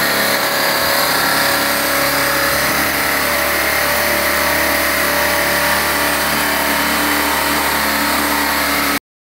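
Electric motors spinning the collective-pitch rotors of a homemade four-rotor drone rig: a steady whir of blades with a constant motor whine. It stops abruptly near the end.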